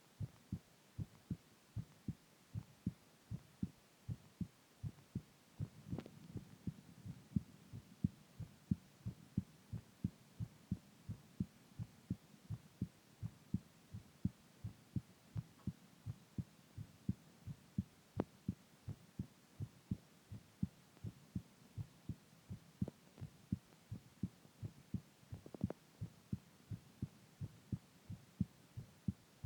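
Heartbeat: a steady, even run of soft, low thumps, about two a second.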